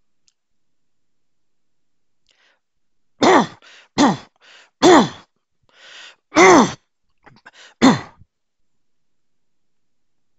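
A man coughing: a fit of about five loud, sharp coughs starting about three seconds in and stopping after about five seconds, with quieter breaths between them.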